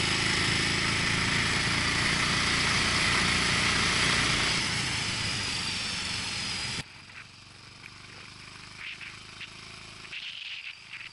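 Motorcycle running at road speed with heavy wind rush on the camera. About seven seconds in it cuts off suddenly to quiet open-air ambience with a few faint, brief sounds.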